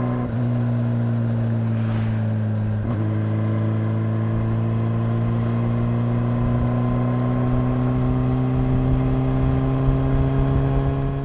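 Honda CB400 Super Four's inline-four engine running as the bike is ridden. The engine note breaks and dips briefly about three seconds in, then climbs slowly and steadily in pitch.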